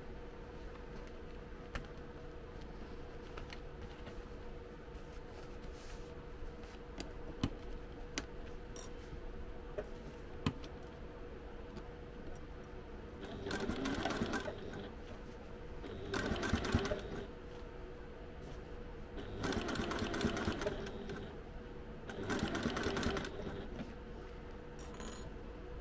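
Domestic electric sewing machine stitching in four short bursts of about a second each in the second half, going slowly through thick layers of fabric and Pellon stabiliser. Before the bursts there is a low steady hum with a few light clicks.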